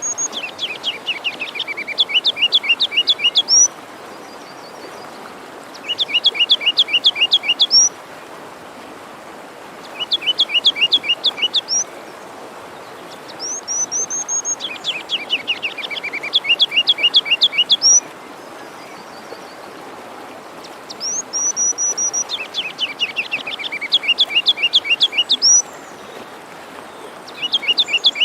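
A songbird singing the same phrase of rapid, sharp chirps over and over, each burst lasting about two seconds with a few seconds' pause between, a thin high whistle sometimes leading in. Beneath it runs the steady rush of a forest stream.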